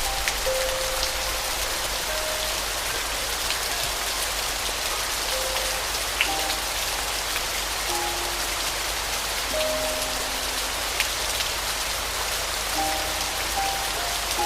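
Steady rain falling, an even hiss with scattered drops ticking, under a slow, soft piano melody of single held notes.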